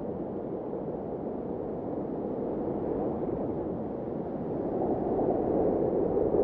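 A steady rushing noise that grows louder over the last two seconds.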